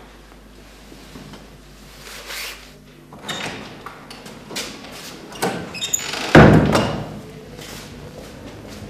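Scattered knocks and clatters, then a loud, heavy thump about six and a half seconds in.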